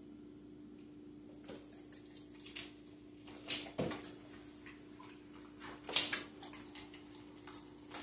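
A dog's claws and paws clicking and tapping on a wooden floor as it gets up and moves about: scattered sharp clicks, the loudest a quick pair about six seconds in. A steady low hum runs underneath.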